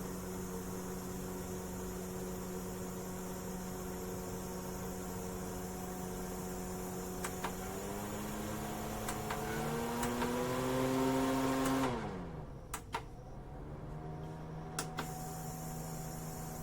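Small USB desktop air-cooler fan running with a steady motor hum. About eight seconds in, its pitch rises over a few seconds as it speeds up, then drops sharply about twelve seconds in. A few light clicks sound along the way, and the hum settles steady again.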